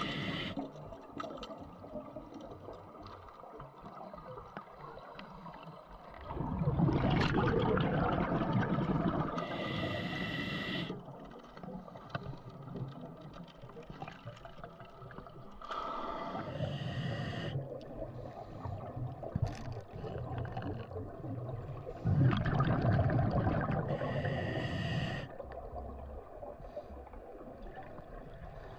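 Scuba diver breathing underwater through a regulator: short hissing inhales and two long bursts of bubbling exhale, about fifteen seconds apart.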